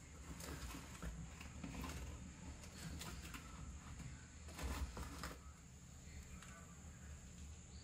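Faint crackles and scattered pops from a wood-fired hearth with a clay pot of curry on it, with a denser cluster of crackling about five seconds in.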